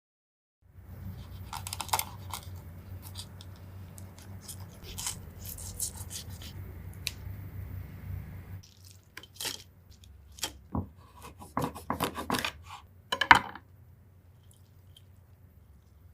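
Raw shrimp being handled and trimmed, the spikes and legs snipped off with kitchen scissors. A steady low hum and rustling with scattered clicks lasts until about halfway, then a run of sharp separate snips and clicks, the loudest just past the middle of the second half.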